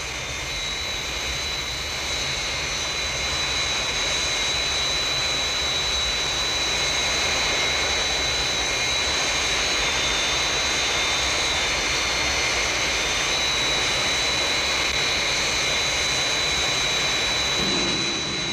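Jet aircraft engines in flight: a steady rushing roar with a constant high-pitched whine.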